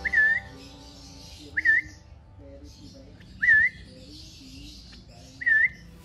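A person whistles a short recall call four times, one quick upturned note about every two seconds. It is the whistle signal that calls a young African lovebird to walk over to be hand-fed. Background music plays underneath.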